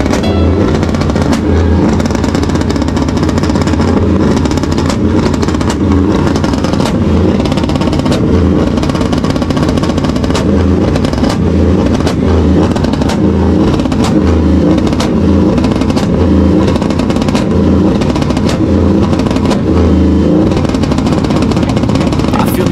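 Engine of a GMC Sierra pickup revving over and over, loud, with a repeated pulsing rhythm.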